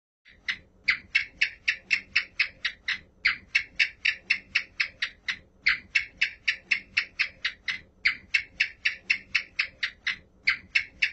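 House gecko calling: quick runs of sharp chirps, about five a second, in series of a dozen or so with brief pauses between them.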